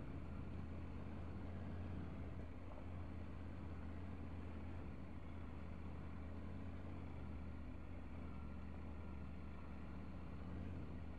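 Triumph Tiger 900's three-cylinder engine running at a steady low engine speed, with a constant rumble of riding noise around it.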